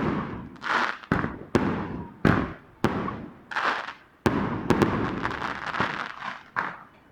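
Fireworks going off in quick, irregular succession: a dozen or more sharp bangs, each trailing off before the next.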